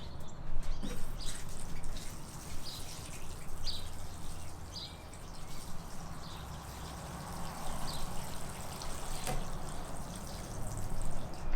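Water being poured onto freshly sown seed trays, a steady trickle and splash into the soil, with a few short high chirps now and then.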